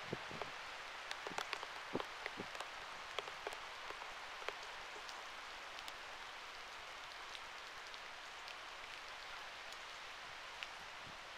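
Steady rain hissing, with individual raindrops tapping on the camera's weatherproof housing. The taps come thick in the first few seconds, then thin out to an occasional drop.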